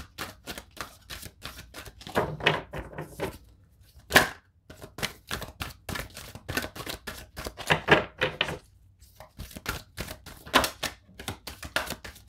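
A deck of oracle cards being shuffled by hand: a quick, uneven run of card clicks and slaps. One sharper slap comes about four seconds in, and there are short pauses between bursts.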